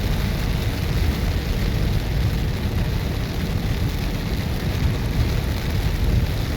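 Heavy rain pouring steadily in a thunderstorm downpour, with a steady low rumble beneath it.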